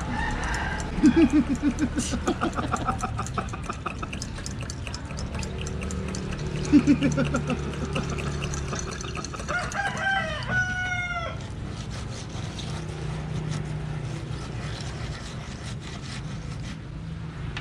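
Chickens clucking in quick runs of notes about a second in and again about seven seconds in, with a falling drawn-out call, typical of a rooster's crow, about ten seconds in, over a steady low background hum.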